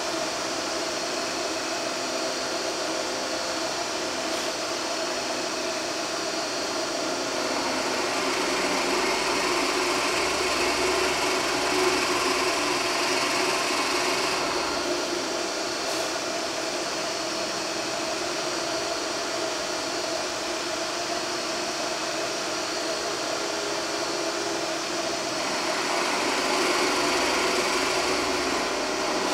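Clausing drill press motor running steadily while a 20 mm brad point bit bores dog holes in wood. There are two louder stretches of cutting noise, one about a quarter of the way in lasting several seconds and a shorter one near the end.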